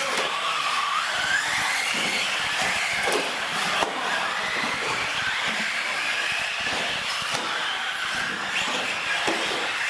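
Small radio-controlled race trucks' motors whining over the hiss of their tyres on the floor, the pitch rising and falling as the trucks speed up and slow down. A sharp knock a little under four seconds in.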